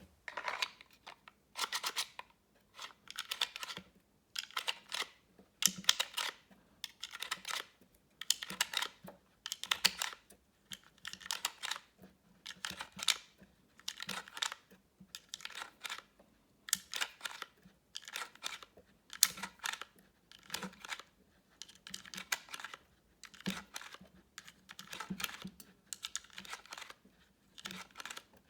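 .22LR cartridges being pushed one at a time into a 25-round CMMG 22 magazine through a syringe-style PETG plastic speedloader. Each round makes a short scraping click, about once a second, over and over.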